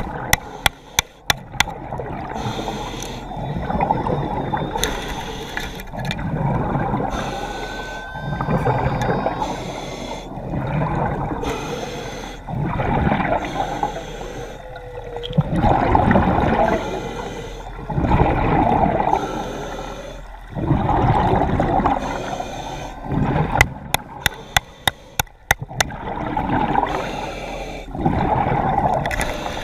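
A diver's breathing through a snorkel with water gurgling, swelling in and out about every two seconds. Two quick runs of sharp clicks come in the first two seconds and again around 24 seconds.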